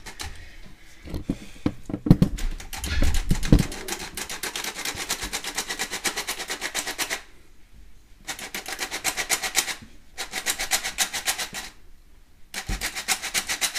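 Hand-operated metal flour sifter being worked over a pot, rattling in fast, even clicks in four runs of a few seconds each with short pauses. A few knocks and clatters come in the first few seconds.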